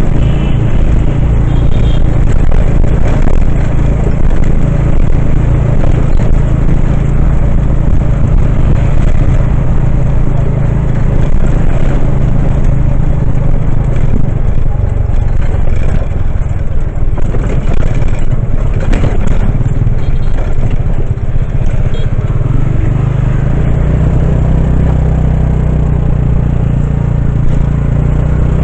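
Engine and road noise of a moving vehicle heard from on board, loud and steady with a low hum throughout.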